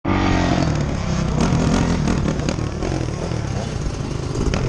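Honda CRF450R dirt bike's single-cylinder four-stroke engine idling steadily close to the camera.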